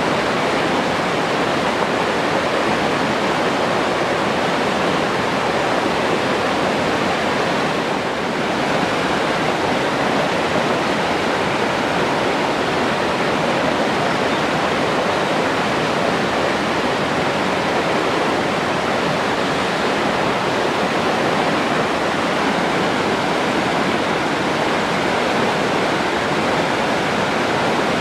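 Forest stream running over rocks: a steady, full rush of flowing water with no breaks.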